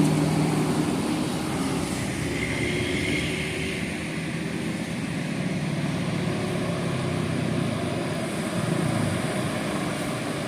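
Bus engine running with a steady drone.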